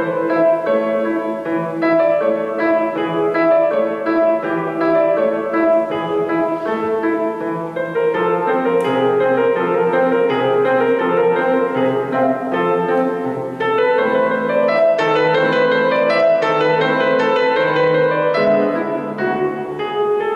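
Solo grand piano playing a continuous run of notes, with lower bass notes joining in about eight seconds in.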